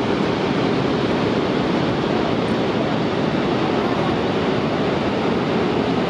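Steady rush of a large waterfall: an even noise that holds at one level throughout.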